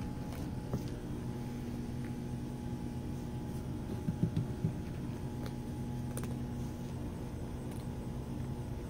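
A steady low mechanical hum runs throughout, with a few faint clicks from cats crunching dry kibble and a short cluster of soft low bumps about four seconds in.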